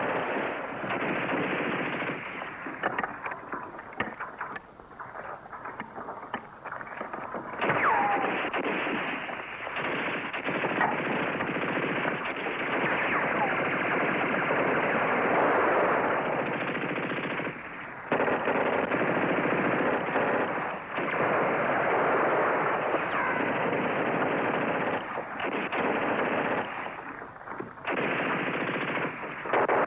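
Heavy automatic gunfire in long sustained bursts, machine-gun fire mixed with single shots, broken up into scattered shots a few seconds in and pausing briefly several times toward the end. The sound is dull and band-limited, as on an old TV film soundtrack.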